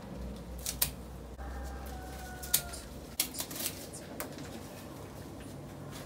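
Red ti plant (Cordyline fruticosa) leaves being cut from their stalk, heard as several sharp snips at irregular intervals.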